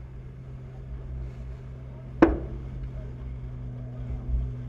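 Steady rush of wind and water along the hull of a racing yacht sailing heeled over through spray, under a low steady hum. One sharp knock stands out about two seconds in.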